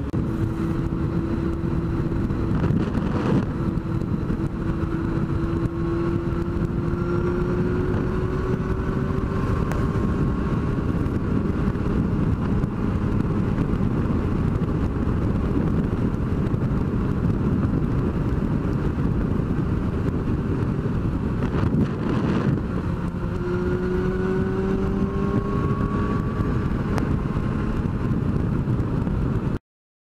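Yamaha sport bike's inline-four engine running at highway speed under heavy wind rush on a helmet-mounted camera, its note climbing slowly a couple of times as the bike gains speed. The sound cuts off abruptly near the end.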